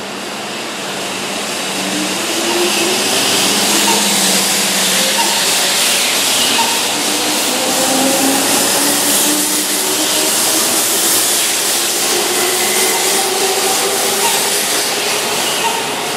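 Keihan 2600-series electric train pulling away from the platform and accelerating past at close range. It runs with a steady rush of wheels on rail, gets louder over the first few seconds, and a motor whine climbs in pitch again and again as it gathers speed.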